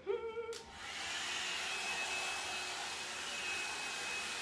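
L'ange Le Volume hot-air brush dryer starting up about a second in, then running steadily: an even rush of blown air with a thin high motor whine over it as it is drawn through the hair.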